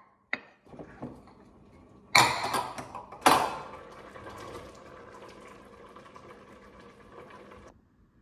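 A few light clicks, then two sharp metallic clanks of a stainless steel pot lid, followed by the steady bubbling hiss of a pot of soup simmering, which cuts off near the end.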